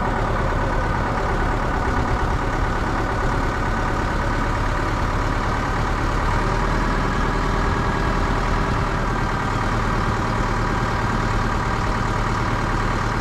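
Wheel loader's diesel engine idling steadily, with wind blowing across the microphone.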